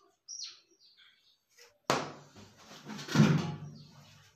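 Faint clicks of a small action camera being handled, then a sharp knock about two seconds in and a louder, heavy thump with scraping a second later as a person gets up from a chair at a table and sets the camera down.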